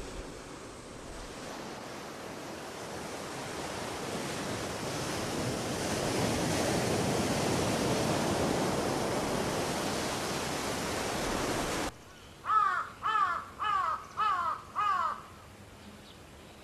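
Surf breaking and washing over a rocky shore, swelling and then cut off suddenly about twelve seconds in. A crow then caws five times, about one caw every 0.6 seconds.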